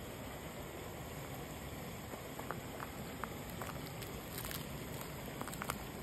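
Small stream of running water flowing steadily, with a few light ticks and plinks, several close together near the end.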